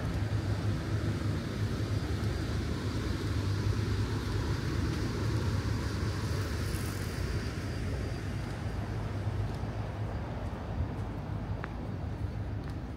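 Low, steady vehicle rumble that slowly fades over the last few seconds.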